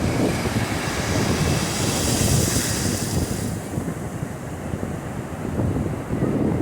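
Wind buffeting the phone's microphone over ocean surf, with a rush of surf hiss swelling about two seconds in and falling away about a second and a half later.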